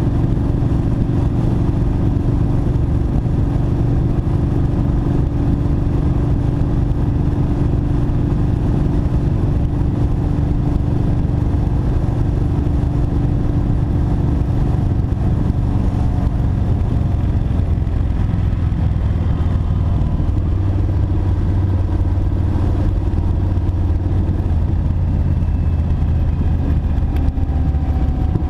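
Kawasaki Vulcan Mean Streak's V-twin engine running steadily at freeway speed under a rush of wind. About two-thirds of the way through, its pitch drops as the rider eases off.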